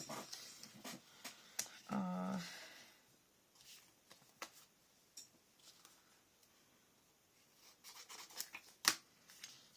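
Paper cut-outs handled and moved about on a scrapbook page: light paper rustles and small taps, with a sharper tap near the end.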